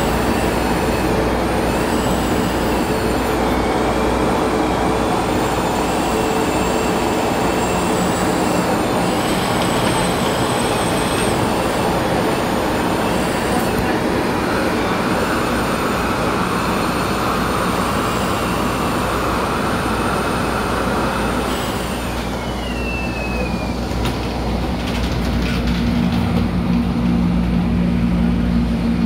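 MTR A-train electric multiple unit running along the line, heard from inside the car: a steady rumble of wheels on rail under a whine from the traction equipment that wavers in pitch, with one tone gliding down about two-thirds of the way through.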